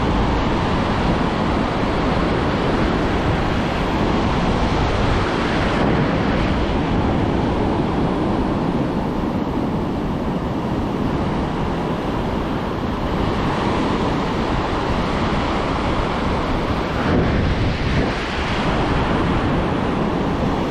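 Pacific surf washing on the beach, with wind buffeting the microphone; steady, loud rushing with a slight surge near the end.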